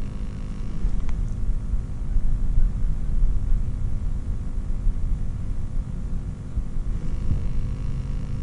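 Low, uneven rumble over a steady hum.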